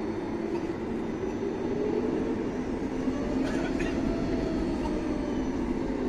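Steady rumble inside the cabin of a Boeing 737 MAX taxiing after landing, with a faint tone swelling and fading in the middle and a few light rattles.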